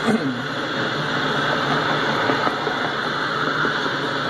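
Autorack freight cars rolling past on the track: a steady rumble of steel wheels on the rails, with a brief louder swell just after the start.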